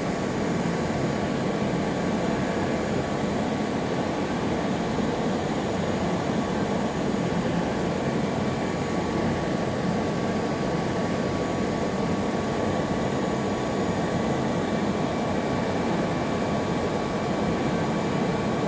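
AgieCharmilles CUT E350 wire EDM machine running, a steady even hiss and hum with a faint steady whine over it.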